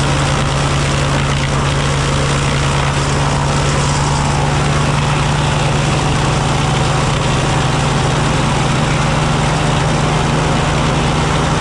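S.A. Woods wood planer running, driven by a Super W-6 tractor engine: a steady, loud mechanical drone with a strong low hum under a dense rushing clatter.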